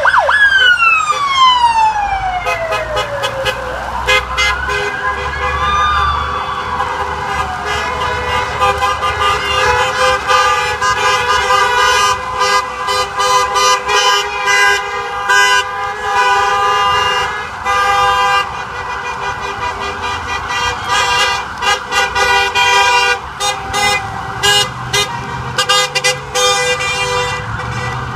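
An emergency siren winds down in a long falling wail, then gives one more rising and falling wail about four seconds in. From about eight seconds on, car horns honk continuously: held tones overlap with many short toots.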